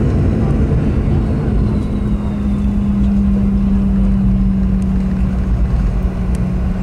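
Cabin noise of a Boeing 717 rolling out on the runway after landing: a loud, steady low rumble from the wheels on the runway and the rear-mounted Rolls-Royce BR715 engines. A steady low hum sets in about a second and a half in.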